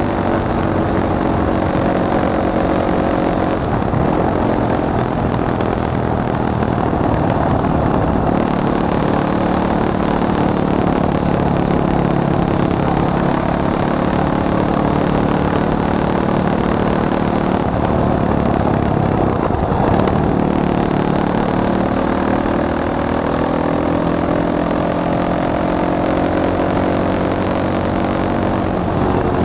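Fantic Caballero 500 motorcycle's single-cylinder four-stroke engine running under way, its revs rising and falling. The pitch drops about four seconds in, holds fairly steady, then climbs slowly through the last several seconds.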